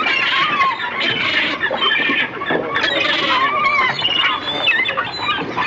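Many birds squawking and calling over one another in a dense, loud, overlapping chorus of rising and falling cries.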